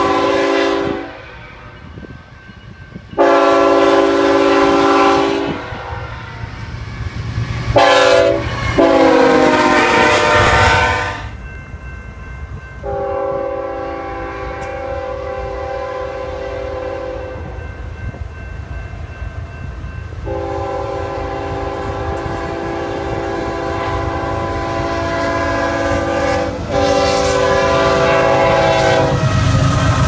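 Nathan Airchime K5HL five-chime locomotive horns on GE locomotives sounding a series of long blasts, one short blast and long blasts. One blast drops in pitch as the locomotive passes. The pattern is typical of the long-long-short-long grade-crossing signal. Later blasts sound at a second crossing and run into the low rumble of a passing train near the end.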